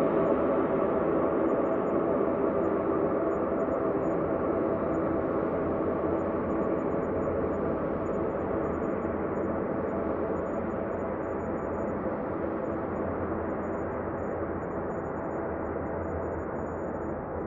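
Ambient space drone: a dense, steady hum of many layered tones, slowly growing a little quieter and duller.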